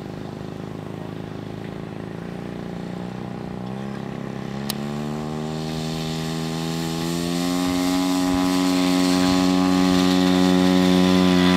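Engine of a radio-controlled scale de Havilland Tiger Moth model running up from idle to full power for its takeoff run: the pitch climbs over a few seconds starting about a third of the way in, then holds steady and loud. A single sharp click near the middle.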